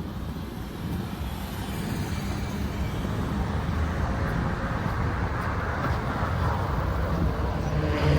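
Street traffic: the low rumble of passing vehicle engines, growing louder toward the end as a vehicle comes closer.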